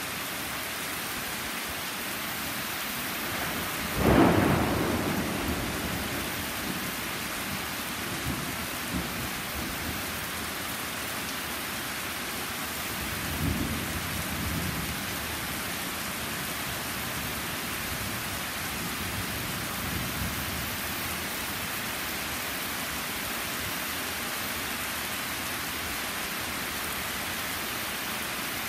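Steady rain falling on trees and a flagstone patio. A sudden loud clap of thunder about four seconds in rumbles away over a couple of seconds, and a weaker roll of thunder follows about ten seconds later.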